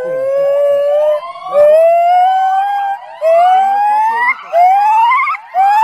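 Male white-cheeked gibbon calling: a run of long whooping notes, each rising in pitch. The notes grow shorter, steeper and higher as the call speeds up, and break into wavering trills near the end.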